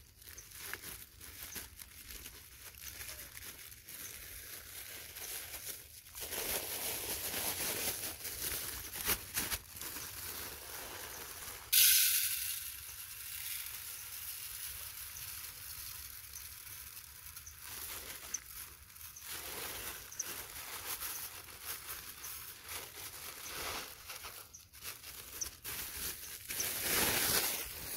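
Rustling and crinkling handling noise over a steady hiss; about twelve seconds in, a sudden loud hiss that fades away over several seconds.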